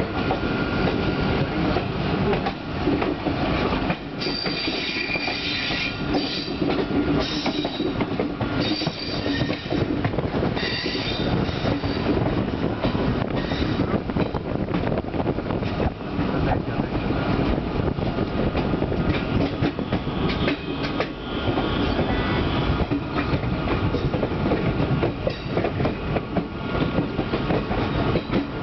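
Passenger train running on the rails, heard from aboard a carriage: steady wheel and track noise with rail clatter. A high-pitched squeal comes and goes several times over the first half.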